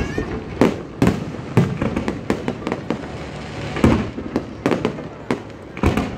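Aerial fireworks bursting in quick, irregular succession: a dozen or so sharp bangs with echoing tails over continuous crackling.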